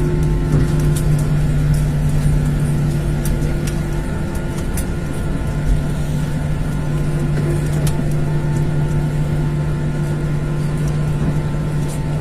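Airliner's jet engines running steadily at low power while taxiing after landing, a constant hum with fainter steady whines above it, heard from on board. Scattered light clicks sit over it.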